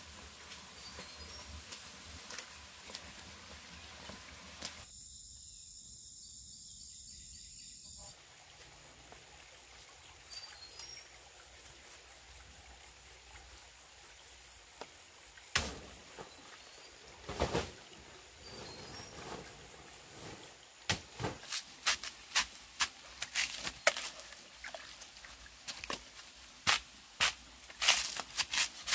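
Forest background with a steady high whine and a few faint bird chirps. About halfway through come two loud knocks, then from about two-thirds of the way a run of sharp strikes, roughly two a second, as a knife cuts into a fibrous plant stem.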